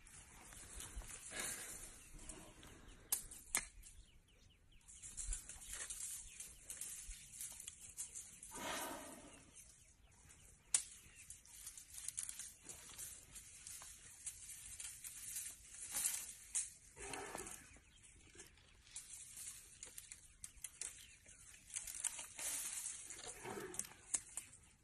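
African bull elephant reaching up on its hind legs to strip a tree: leafy branches rustling and tearing in uneven surges as the trunk pulls at them, with a few sharp twig snaps.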